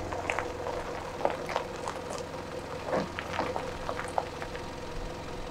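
Mitsubishi Fuso Canter 4x4 truck's engine running with a steady low hum as the truck reverses slowly over gravel, with scattered small clicks and crackles of stones popping under the tyres.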